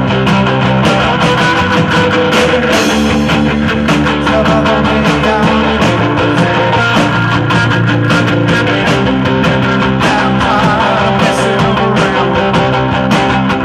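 Live rock band playing an instrumental passage: distorted electric guitars over a driving drum kit with frequent cymbal crashes.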